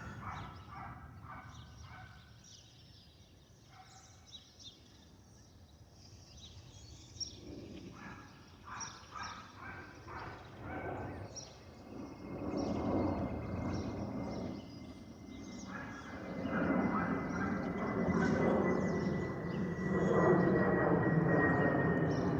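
Pratt & Whitney PW1500G geared turbofan engines of an Airbus A220-100 making their warbling, whale-like moaning calls. A steady high whine comes in about halfway and drifts slightly lower, and the engine noise grows louder in stages.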